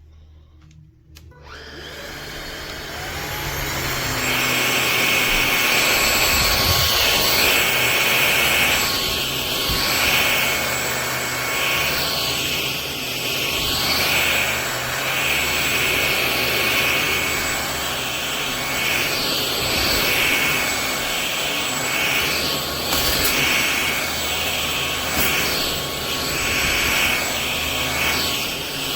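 MBYULO cordless stick vacuum switched on: its motor spins up to a steady high whine over a few seconds, then runs on, the pitch and level shifting a little as it is worked over the floor.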